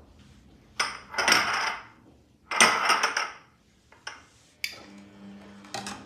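Small cut-glass footed bowls being slid and knocked together on a stone countertop: two clattering scrapes with a bright glassy ringing. Then a few light clicks as a metal ladle goes into the pot of milk.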